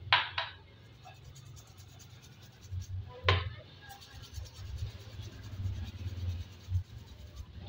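A small brush scrubbing a motorcycle's soapy roller chain and rear sprocket, with sharp clicks twice near the start and once about three seconds in.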